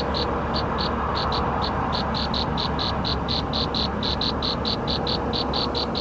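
An insect chirping rapidly in high-pitched pulses, about five a second with brief pauses, over a steady outdoor hiss.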